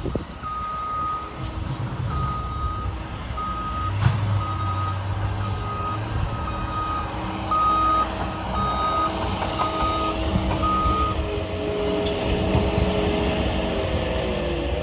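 A truck's reversing alarm beeping at about one beep a second over the running engine. The beeps stop about eleven seconds in.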